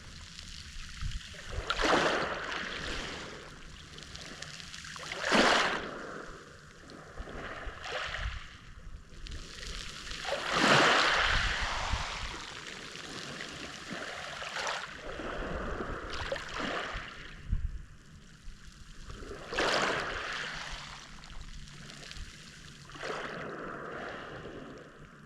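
Small waves of the Mediterranean Sea breaking and washing on the shore, a surge of surf every few seconds over a steady wash.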